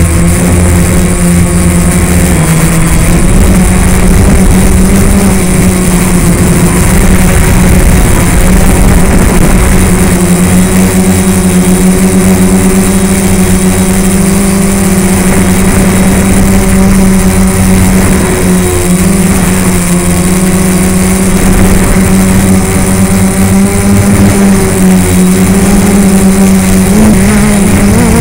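Quadcopter motors and propellers running loud and steady in flight, close to the onboard camera, with a constant buzzing hum. The pitch wavers briefly near the end as the motor speeds change.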